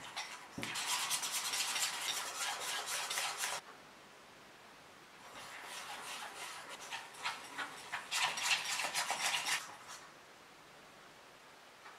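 Small wire whisk beating batter in a stoneware bowl, its wires scraping and rattling against the bowl in two bouts of rapid strokes with a short pause between: first working egg white into creamed butter, then cake flour.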